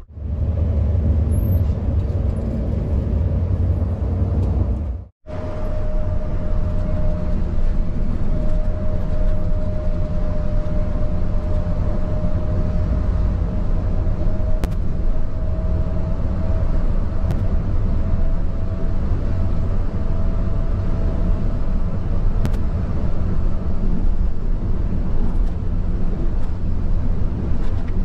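A bus on the move: a steady low rumble of engine and road noise, with a faint steady whine for much of the time. The sound cuts out briefly about five seconds in.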